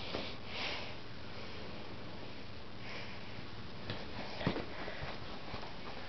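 A few short breathy sniffs over a steady background hiss, with light knocks about four and a half seconds in and again at the end.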